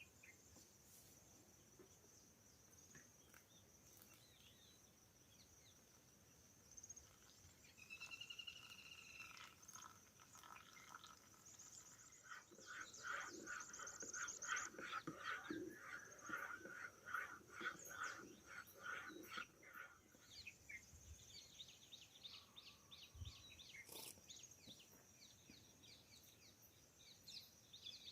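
Faint forest birdsong: a few curved chirps, then a long run of rapid repeated call notes, over a steady high insect drone. A single sharp click near the end.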